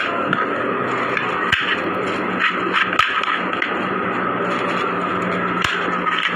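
Small plastic amulet cases clicking and knocking as they are handled, opened and snapped shut. Several sharp clicks, the clearest about one and a half, three and five and a half seconds in, sound over a steady background hum.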